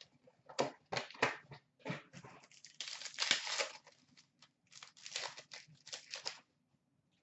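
Foil hockey card pack being torn open and crinkled by hand: a run of sharp crackles and rustles, with the longest, loudest tearing stretch about three seconds in.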